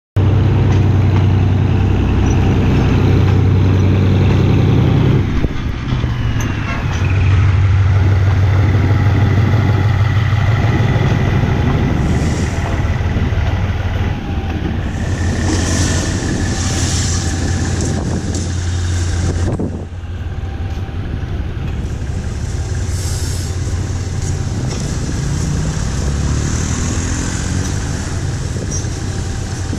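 GE diesel-electric shunting locomotive running with a loud, deep, steady engine drone as it moves passenger coaches past close by. The drone dips briefly about five seconds in and drops in level about twenty seconds in, and short high hissing sounds come and go in the second half.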